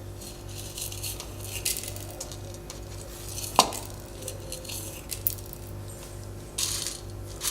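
Coriander seeds roasting in a little oil in a kadai, with scattered light clinks and scrapes of a spoon against the pan. One sharper clink comes about three and a half seconds in, and a brief rush of noise comes near the end.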